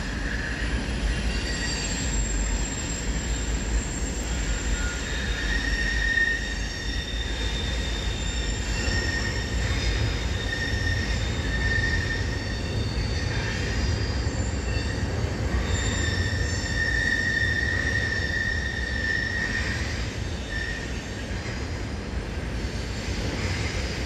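Train crossing a steel truss railway bridge: a steady low rumble with high-pitched wheel squeal that comes and goes every few seconds.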